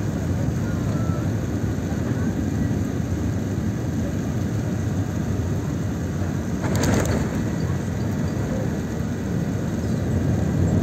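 Airliner cabin noise during landing: a steady low rumble of the jet engines and airflow. A short sharp noise comes about seven seconds in, and the rumble grows louder near the end.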